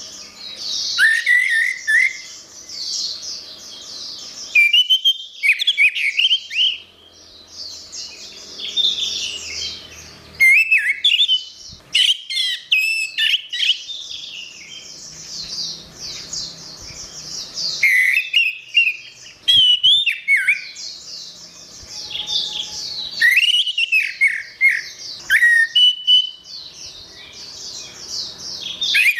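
Orange-headed thrush singing a long, varied song of rapid chirps and whistled notes, delivered in busy phrases broken by short pauses.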